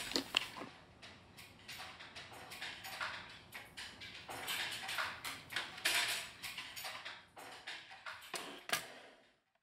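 Lunch eating in a classroom: spoons and chopsticks clicking and scraping on meal trays, in a scatter of irregular small clatters. It cuts off suddenly near the end.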